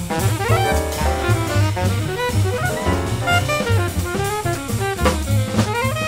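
Live small-group jazz: an alto saxophone solos in fast, quickly changing lines over a drum kit and double bass.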